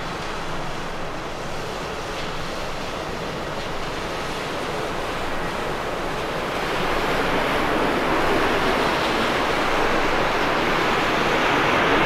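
Jet airliner engines: a steady rushing noise that grows louder from about halfway through.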